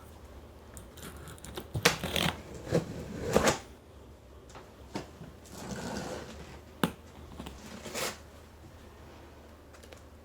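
Packaging being handled and pulled open: scattered rustling, crinkling and tearing noises with a few sharp clicks and knocks.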